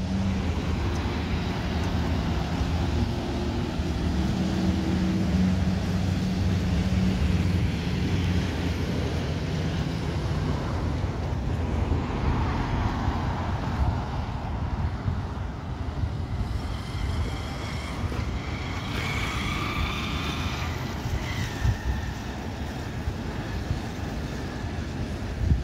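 Boeing 737 MAX 8 airliner on approach, its CFM LEAP-1B engines a steady broad rumble over street traffic. In the second half a whine of several high engine tones rises out of the rumble and drops in pitch near the end as the jet passes.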